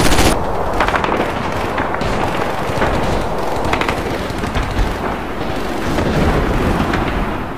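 A rapid machine-gun burst that cuts off about a third of a second in. It is followed by scattered single gunshots and explosions of a battle over a low rumble, which starts to fade near the end.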